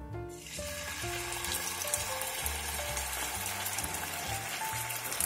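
Starch-coated slices of marinated pork liver going into very hot oil in a frying pan, setting off a steady sizzle that starts about half a second in.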